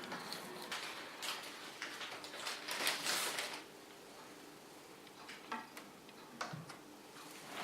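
Handling noises at a workbench: scattered light clicks and knocks, with a short scraping rustle about three seconds in.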